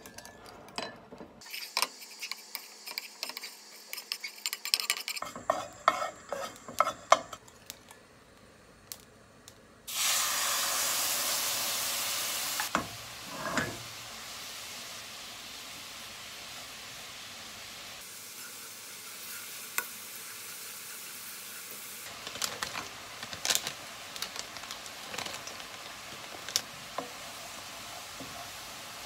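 A wooden spoon stirs seasoning sauce in a ceramic mug, with quick light clinks. About ten seconds in, the sauce goes into a hot nonstick wok of dried anchovies and sizzles loudly at once. After a couple of seconds it settles into a steady sizzle as the anchovies are stir-fried, with the wooden spoon scraping and knocking on the pan in the last few seconds.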